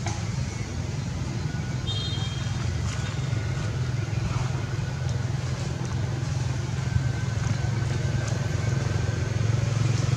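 A motor running steadily with a low drone that grows slightly louder, and a brief high chirp about two seconds in.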